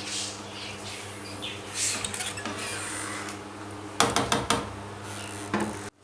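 Metal kitchen utensils clinking and scraping against a cooking pot, with a quick cluster of sharp clinks about four seconds in, over a steady low hum.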